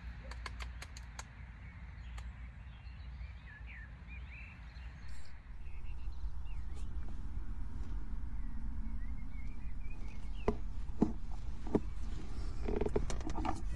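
Rural field background: a steady low outdoor rumble with a few faint bird chirps. There are scattered sharp clicks, several in the first second and a few louder ones near the end. The background gets louder about five seconds in.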